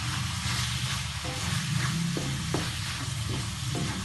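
Mushroom and egg stir-fry sizzling in a metal wok while a wooden spatula stirs and scrapes it, with several sharp clicks of the spatula striking the pan.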